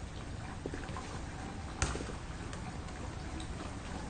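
Steady low background noise with a few faint ticks and one sharper click a little under two seconds in.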